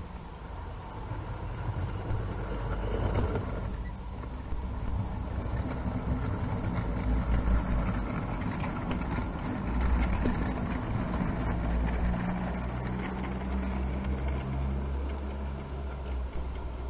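Electric model locomotive running along garden-railway track with a goods train: a steady low rumble of motor and wheels on the rails, with a faint motor hum that comes and goes.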